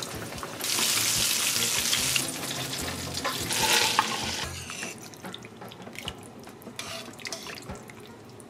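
Hot oil sizzling as a floured fish fillet fries in a cast-iron skillet: a loud hiss for about a second and a half near the start, another shorter one around the middle, then quieter sound with scattered light clicks. Faint background music plays underneath.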